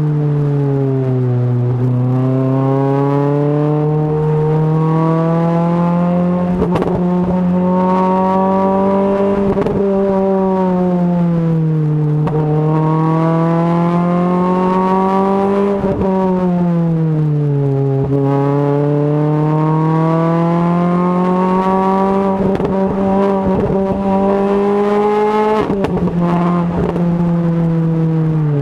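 Renault Clio RS 200's four-cylinder engine through a Supersprint aftermarket exhaust, driven hard: the revs climb, hold and fall back several times as the car pulls through the bends. A few short sharp clicks break in here and there.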